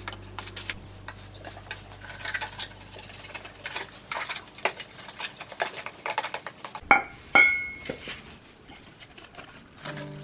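A trowel scraping and tapping through wet cement mortar, followed by two ringing metal clanks about half a second apart as a black metal pipe with an elbow knocks on a concrete floor.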